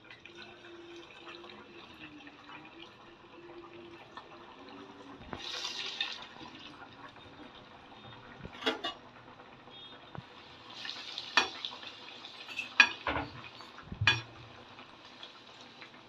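Sabudana vada deep-frying in hot oil, a steady sizzle and bubbling crackle that swells into louder hissing twice. In the second half, several sharp clinks of a metal slotted spoon against the pan.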